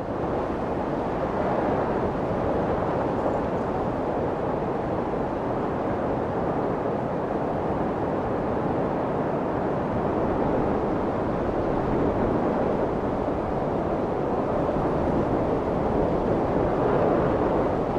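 A steady rushing noise with no clear pitch or beat, swelling slightly toward the end.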